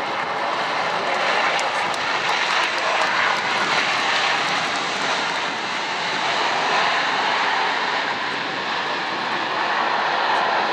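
Airbus A380 jet engines heard as the airliner rolls out along the runway just after touchdown: a loud, steady rushing noise with no clear pitch.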